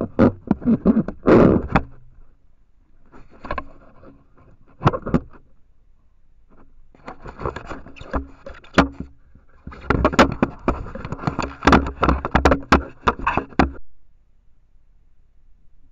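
Trail camera being yanked about on its pole by an elk pulling its strap: bursts of scraping and rubbing with sharp knocks against the camera housing, stopping about 14 seconds in.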